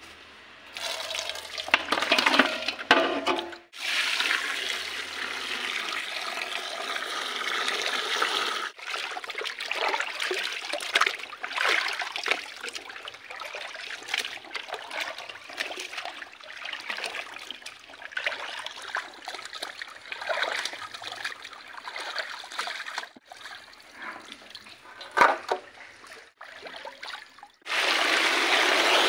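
Water splashing and sloshing in a metal pot as whole pomfret fish are rubbed and washed by hand, with small irregular splashes and knocks. Near the end, a steady rush of poured water.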